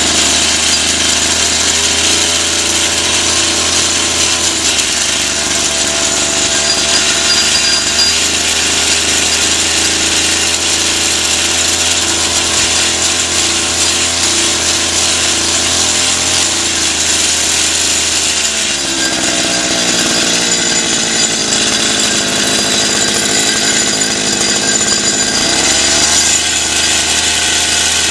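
52 cc two-stroke outboard motor running at high revs, dropping to a lower speed about 18 seconds in and revving back up near the end.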